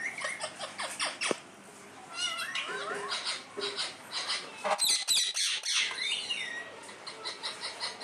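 Rose-ringed parakeets chirping and chattering in a run of short whistled calls that glide up and down, with a loud harsh squawk about five seconds in.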